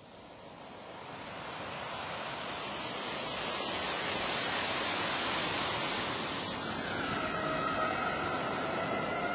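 Steady rushing noise that fades in over the first few seconds, with a couple of faint held tones joining about seven seconds in.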